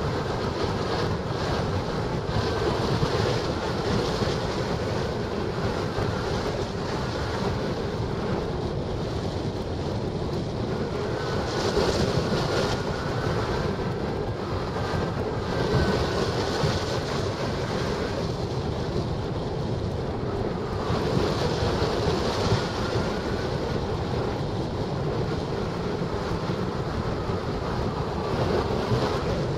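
Steady rush of airflow over the microphone of a wing-mounted camera on a hang glider in flight, swelling and easing at times, with a faint high whistle that comes and goes.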